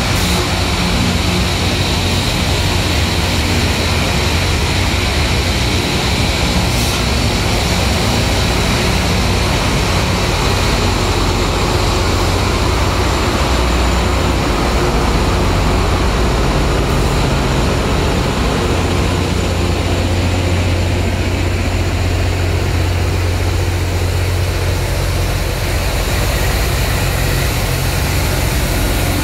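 Loram RG-404 rail grinder at work, its grinding stones on the rail making a steady, loud roar over the deep drone of its diesel engines.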